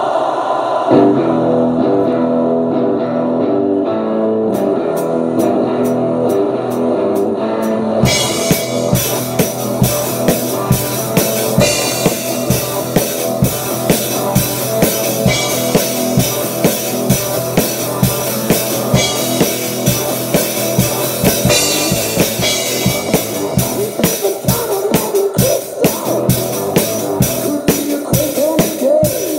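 Hard rock song with an electric guitar riff starting about a second in, light ticking joining a few seconds later, and a full drum kit coming in about eight seconds in, with a steady, strongly hit beat. An acoustic drum kit is being played along with the recording.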